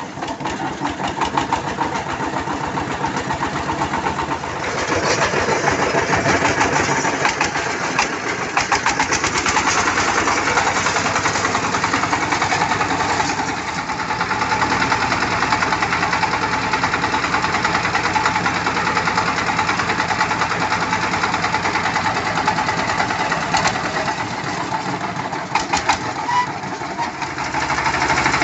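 Mini tractor's engine running with a fast, even knocking chug, getting louder about five seconds in and easing off somewhat near the end.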